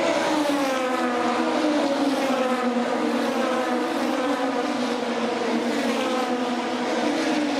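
Super GT GT500 and DTM race cars, two-litre turbocharged four-cylinder engines, passing one after another at full speed down the main straight. Each engine's pitch falls as it goes by, and the next car's note overlaps the last.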